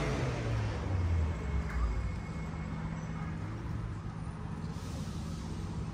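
Street traffic: a vehicle's engine passes in the first two seconds with its pitch falling, then a steady low rumble of traffic.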